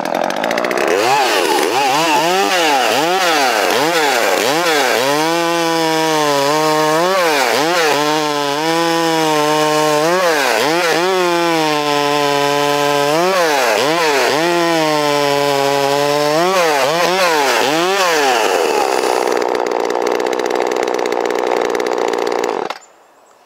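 Poulan Wild Thing two-stroke chainsaw revving and working through a log in four cuts. The engine note rises and falls between cuts and settles to a steady, lower pitch while the chain is in the wood. It then idles for a few seconds and shuts off abruptly near the end.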